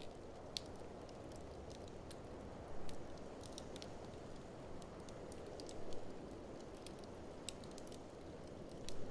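Wood fire crackling in an open fireplace, with scattered sharp pops over a steady low rush of blizzard wind that swells briefly three times.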